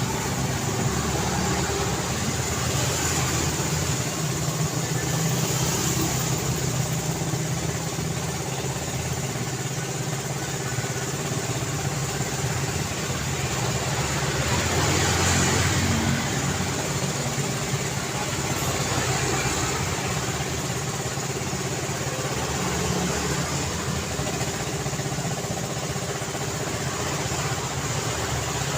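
Continuous road traffic noise: engines and tyres of passing cars, swelling louder about halfway through.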